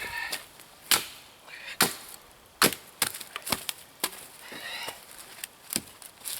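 Axe chopping into a stringy, knotty firewood log: a series of heavy, sharp strikes, about one a second at first and then more spread out, with the wood resisting splitting.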